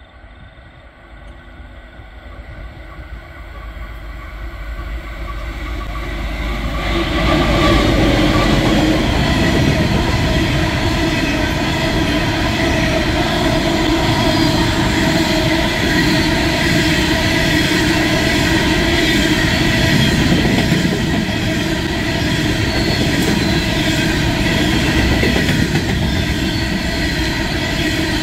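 Aurizon diesel locomotive approaching, its sound building over the first seven seconds, then a long empty coal train of steel hopper wagons running past steadily and loudly, wheels on the rails.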